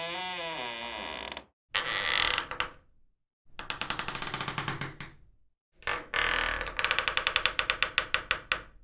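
A run of separate door sound effects with dead silence between them: first a wavering, creaking door hinge for about a second and a half, then a short scraping sound, then two longer stretches of rapid rattling clicks as a door or its latch is worked.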